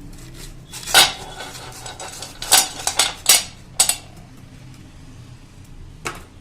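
Hard slate pencils clicking and snapping in a handful of sharp, irregular clicks, the loudest about a second in and a quick cluster in the middle.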